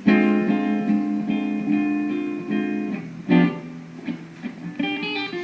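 Instrumental accompaniment to a jazz ballad, with no singing: a chord rings from the start and a new chord is struck about three seconds in, then fades.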